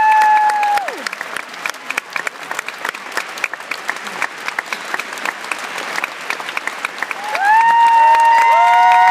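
Audience applauding with dense clapping. A long whoop ends about a second in, and several people start whooping in long held calls near the end.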